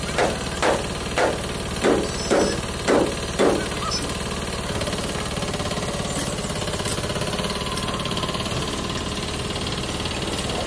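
Small farm tractor's diesel engine running steadily. Over it come seven sharp bangs about half a second apart in the first few seconds.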